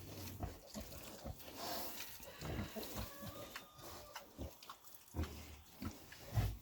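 A sow and her day-old piglets grunting softly, a string of short low grunts with a few faint higher squeaks.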